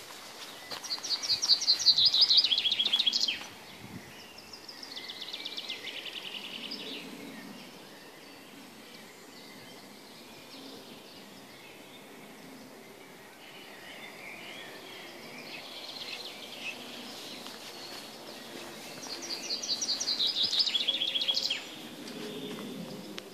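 A songbird singing loud phrases of rapid repeated notes that step down in pitch, about a second in and again near the end, with quieter bird song in between.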